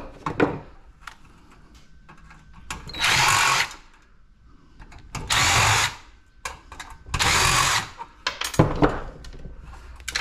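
Cordless drill run in three short bursts of about a second each, with a few knocks from handling parts on the bench between them.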